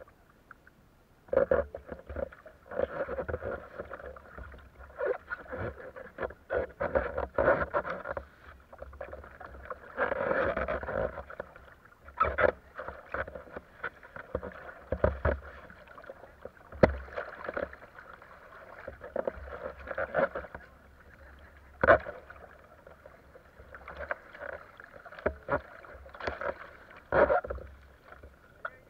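Water sloshing and splashing around a kayak on a riffly river, with irregular sharp knocks and thumps against the hull.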